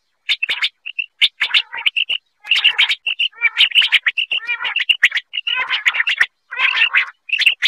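Common quail calling: a quick, dense run of short sharp notes, several overlapping, with some broader, harsher notes mixed in. It is the kind of quail call recording played as a lure in quail hunting and netting.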